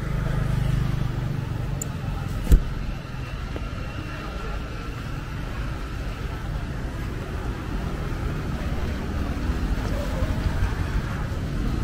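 Traffic on a rain-wet city street: motorbike and car engines running, with tyre noise on the wet road and a single sharp knock about two and a half seconds in.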